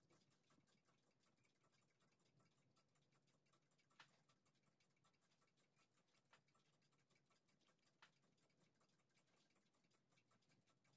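Near silence: faint, fast, even clicking, with three slightly louder soft knocks about four, six and eight seconds in.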